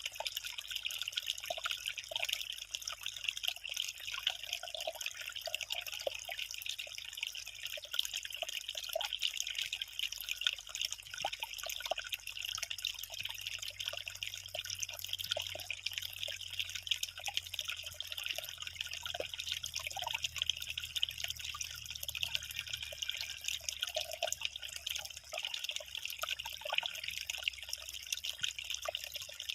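Water trickling and dripping, a steady splashing hiss with many small drops plinking throughout.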